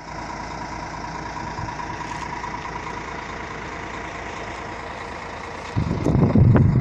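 Parked Mercedes-Benz double-decker coach idling: a steady engine hum with a faint high whine. Nearly six seconds in, a louder irregular rumble of wind buffeting the microphone cuts in over it.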